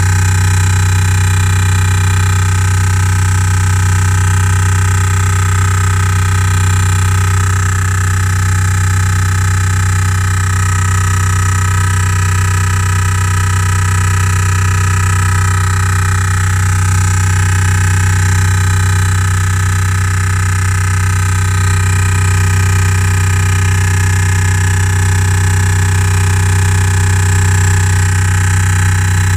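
Loud, unbroken drilling drone from the Bose speakers of a 2015 Renault Grand Scenic: a deep steady hum with a stack of steady higher tones above it. It is the sign of an R-Link head unit fault, which Renault cured by reprogramming the navigation system.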